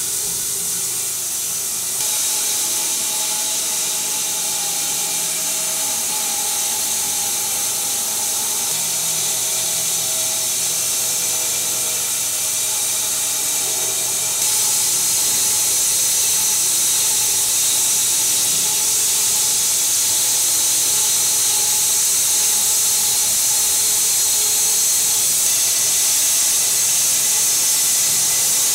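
Bandsaw mill blade cutting through a snow-covered walnut log: a steady, loud hiss with a faint hum beneath. It steps up in level about two seconds in and again about halfway through.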